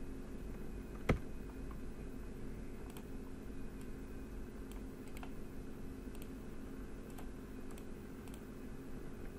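Scattered clicks of a computer mouse and keyboard: one sharp click about a second in, then fainter single clicks spread through, over a steady low hum.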